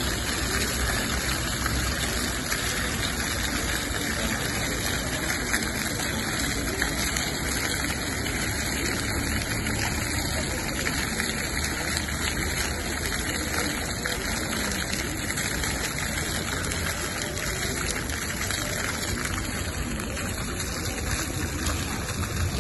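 Ground-level fountain jets spraying up out of paving and splashing back onto the wet stone: a steady rush of falling water.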